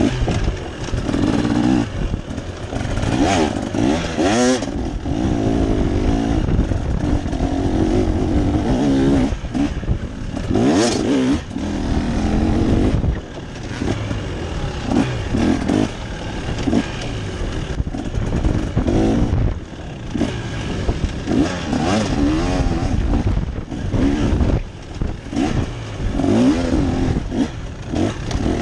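An engine revving up and down over and over, its pitch rising and falling every second or two, over a steady rushing noise.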